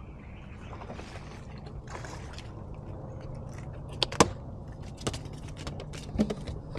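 Sharp clicks and knocks of fishing tackle on a small boat as the angler jerks the rod on a fish's strike, loudest twice about four seconds in, over a steady low hum.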